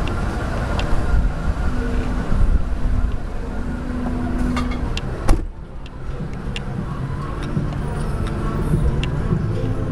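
Ford Expedition stretch limousine's engine running steadily. A single sharp knock comes a little over five seconds in.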